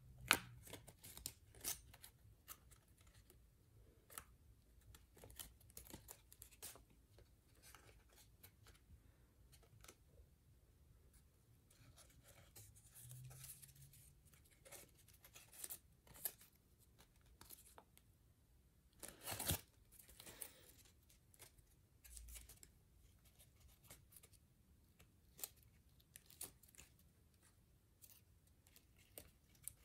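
Sheet of origami paper being folded and creased by hand: faint, scattered crinkles and crackles, with one louder rustle about twenty seconds in.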